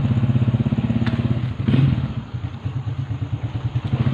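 Small motorcycle engine running steadily with a fast, even firing pulse as it rides along, with a brief knock about a second and a half in.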